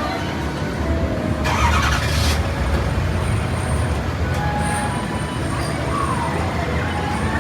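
Steady low rumble of vehicle or heavy machinery running, with a brief sharp hiss about a second and a half in.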